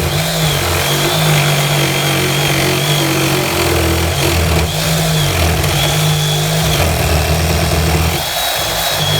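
Electric saw with a fresh blade cutting along the wooden edge of a garden gate, its motor running in long stretches with the speed rising and falling under load, easing off briefly near the end before cutting again.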